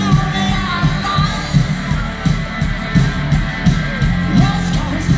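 Live rock band playing loud: electric guitar and a drum kit keeping a steady beat, heard from within the crowd.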